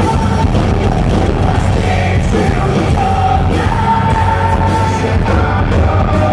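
Live rock band playing loud and continuously: electric guitar, bass guitar and drum kit, with sung vocals holding long notes, heard from within the audience in a club.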